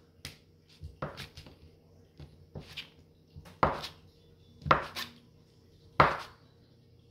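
A kitchen knife cutting a block of cheese into cubes, the blade knocking down onto a plastic cutting board in about eight irregular chops. The sharpest strikes come in the second half.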